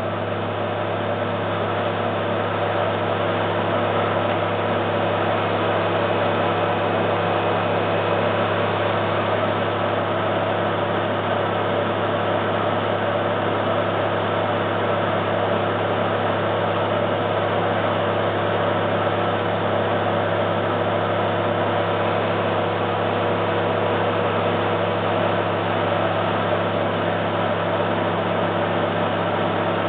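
Cabin sound of a former Kintetsu 16000 series electric train running: a steady rumble of wheels on rail with a constant hum, growing a little louder over the first few seconds and then holding even.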